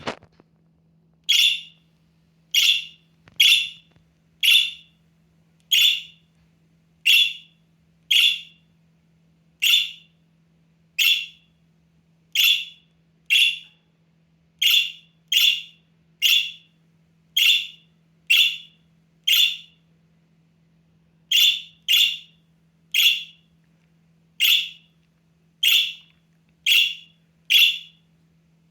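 Half-grown budgerigar chick giving loud, short calls over and over, about one a second, with a couple of brief pauses. This is contact calling, the chick calling out for its keeper.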